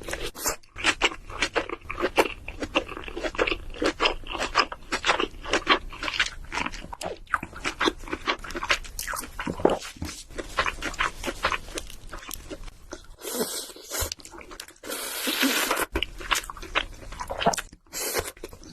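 King crab legs eaten close to the microphone: a dense run of quick, irregular cracks and crunches of shell, with chewing. Twice in the second half a longer hissing, rustling noise lasts about a second.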